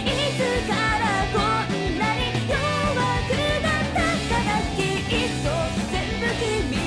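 Rock song with a singing voice carrying the melody over electric guitar and band.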